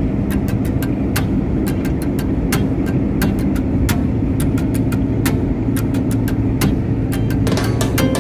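Engine and road noise inside a moving vehicle at highway speed: a steady low drone, with frequent sharp clicks and rattles scattered irregularly through it.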